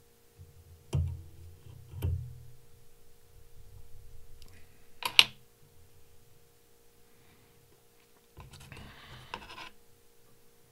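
Small handling noises of fly tying at the vise as the fly is finished: two soft knocks about one and two seconds in, a sharp click about five seconds in, and a scratchy rustle near the end, over a faint steady hum.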